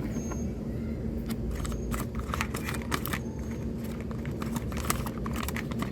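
Plastic microwave-rice pouch crinkling and crackling in irregular bursts as it is handled, over a steady low background hum.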